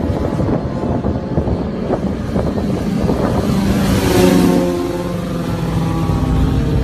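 Sport-bike engines running under throttle during wheelies. A rough, dense rumble gives way about halfway through to a steadier engine note that rises and falls slightly in pitch.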